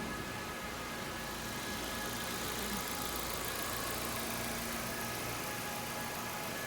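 2017 Nissan Versa Note's four-cylinder engine idling steadily.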